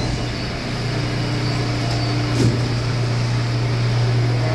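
R211 subway train heard on board, running with a steady low hum and a steady higher tone that comes in about a second in. A short knock comes about two and a half seconds in.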